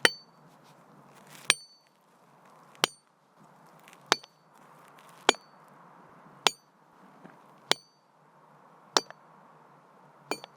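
A hammer striking masonry in a steady rhythm, nine sharp blows about one every 1.2 seconds, each with a brief metallic ring, a few followed by a small rebound tick.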